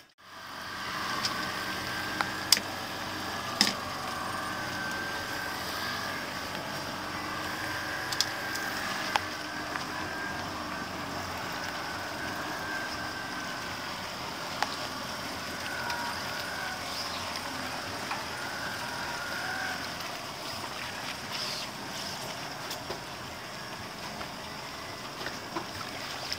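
Fishing boat's motor running steadily at low speed, a faint wavering hum over a noise bed, with a few sharp clicks scattered through.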